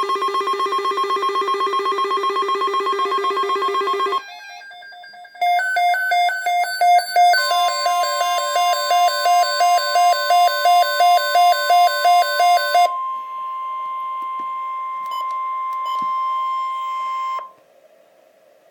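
Electronic alert tones from a weather radio. First an unidentified buzzing ring for about four seconds. Then rapid electronic beeping over the NOAA Weather Radio warning alarm tone, and after that the alarm tone alone as one steady tone, cutting off abruptly about a second before the end.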